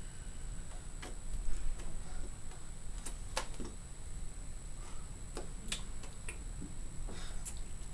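A few light, irregular clicks and taps, the incidental sounds of a person's hands and mouth while signing, over a steady low hum and a faint high whine.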